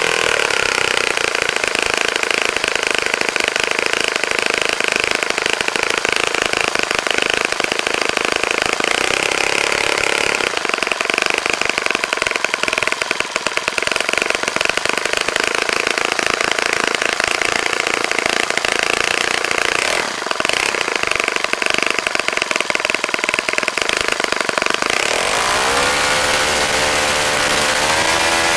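Saito FA-65 four-stroke glow engine with a 12x6 propeller running at high speed on a test stand during its first run after a rebuild: a steady, loud buzzing drone. Near the end the pitch shifts as the engine speed changes with throttle movement.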